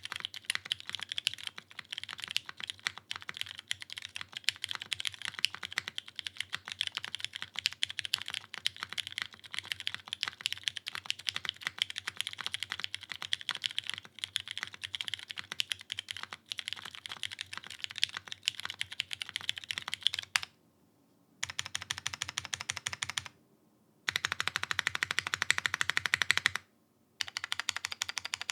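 Continuous typing on a Geonworks F1-8X gasket-mounted mechanical keyboard with lubed Cherry Hyperglide Brown tactile switches in a 1 mm aluminium plate and GMK keycaps. After about twenty seconds of steady key strokes the typing stops briefly three times, with quick flurries of keystrokes between the pauses, the fastest near the end.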